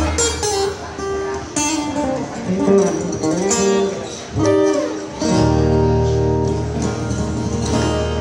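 Takamine acoustic guitar played solo without singing: a picked single-note melody with slides, then from about five seconds in a full strummed chord ringing on.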